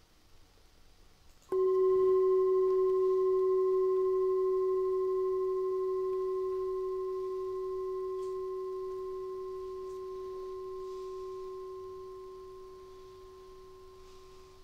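A bell struck once about a second and a half in, ringing a clear tone with a few higher overtones that slowly fades, then cut off abruptly near the end.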